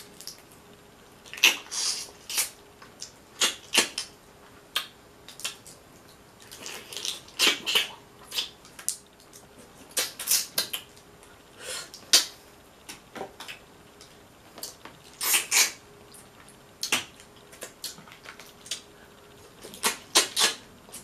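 Close-up eating sounds of a person picking apart and eating boiled Dungeness crab: irregular wet smacking, chewing and sharp crackles of shell, in scattered clusters with short pauses.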